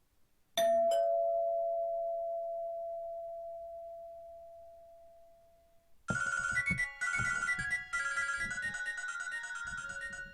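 Nokia 1110 phone tones playing: a single two-note chime that fades away over about five seconds. About six seconds in, another ringtone starts, a quick electronic melody of short beeping notes.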